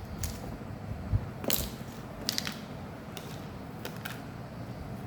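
A smartphone being handled on a workbench while it is tested: half a dozen light, sharp clicks and taps at irregular intervals, the loudest about a second and a half in.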